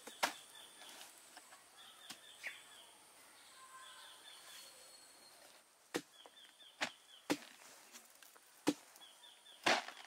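Blows of a long-handled blade chopping into the fibrous pith of a felled sago palm trunk: one sharp strike just in, a pause of about five seconds, then a run of five irregular strikes, the last the loudest. Faint high chirps of birds or insects sound during the pause.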